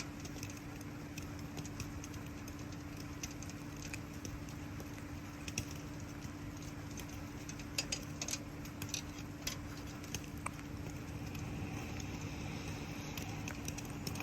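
Campfire crackling, with scattered sharp pops more frequent around the middle, over the steady hiss of falling rain and a low steady hum.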